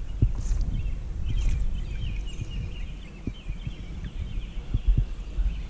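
Outdoor pond ambience: birds chirping continuously over a low wind rumble on the microphone, with a few soft low knocks.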